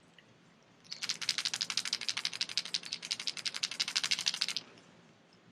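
Hard-bodied crankbait shaken by hand, its internal rattle clicking rapidly, roughly ten clicks a second, for about three and a half seconds, starting about a second in.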